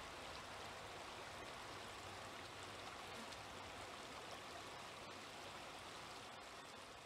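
Faint, steady rush of running stream water.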